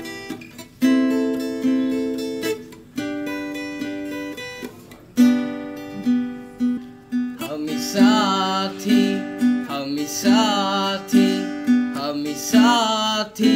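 Background music: strummed acoustic guitar chords ringing out, with a singing voice coming in about halfway through.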